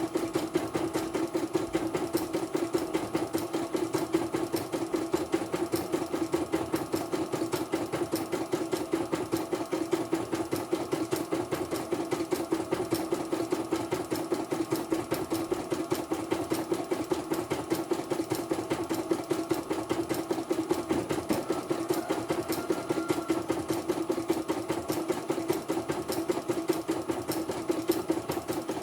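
Portable computerized embroidery machine stitching steadily, its needle bar running a fast, even, regular rhythm throughout.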